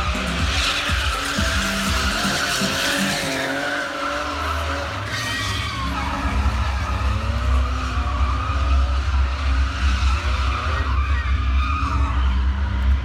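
Stunt vehicle engines revving up and down, with tyres skidding on the arena surface.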